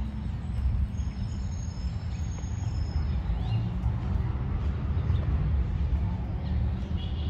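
Outdoor park ambience: a steady low rumble with a few faint, short bird chirps.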